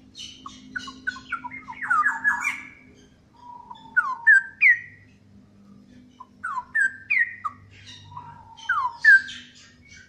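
Straw-headed bulbul singing: four loud, bubbling phrases of quick upward-sweeping whistled notes, with short pauses between them.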